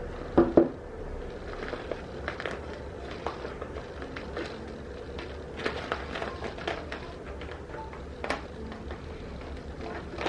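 Small objects being handled: two sharp knocks about half a second in, then scattered light clicks and taps over a steady low hum.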